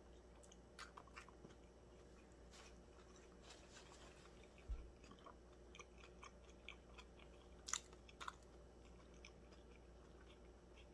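Faint close-up chewing of a steak and cheese sub: scattered soft, wet mouth clicks and smacks. A low thump comes a little under halfway through, and a few sharper smacks near eight seconds in.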